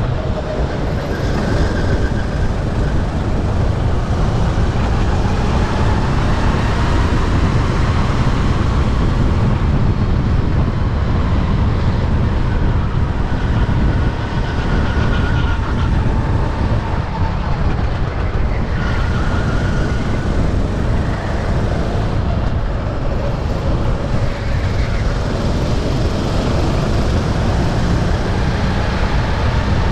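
Sodi RT8 racing kart's engine heard onboard at race pace, its pitch rising and falling again and again as it speeds up and slows down, over a loud low rumble.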